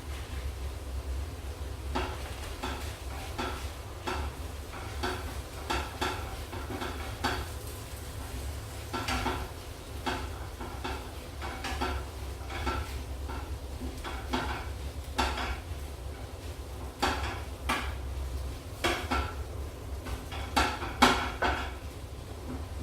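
A utensil stirring and scraping in a frying pan of scrambled eggs and spinach: irregular clicks and scrapes against the pan, over a steady low hum.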